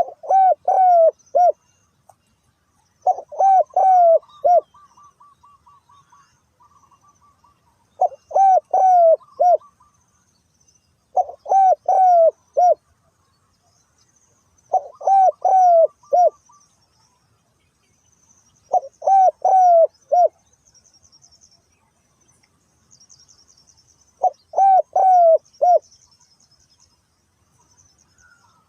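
Spotted dove cooing: seven phrases of four or five rising-and-falling coos, a phrase every three to four seconds. Faint high chirps of small birds and a short trill about four seconds in.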